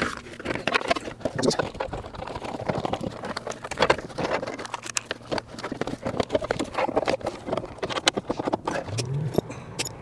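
Irregular light clicks and knocks as seatbelt hardware, metal and plastic parts, is handled by hand.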